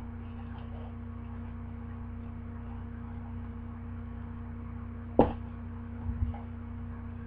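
Steady electrical hum of room tone, with one sharp knock about five seconds in and a couple of soft thuds just after.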